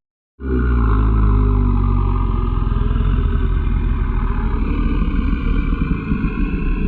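Designed monster growl: one long, deep, rattling growl that starts about half a second in and is held without a break, rising a little in pitch near the end.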